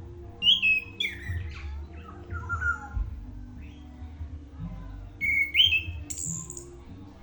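Chestnut-capped thrush (anis kembang) singing: two short phrases of quick, sliding whistled notes, the first about half a second in and the second a little past the middle, over a steady low rumble.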